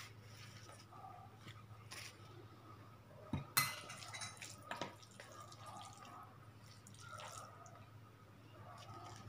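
Light kitchen handling at a table: a sharp clink of crockery about three and a half seconds in, with a few softer clicks and faint rustles of the wrapper sheet on the plate around it, over a low steady hum.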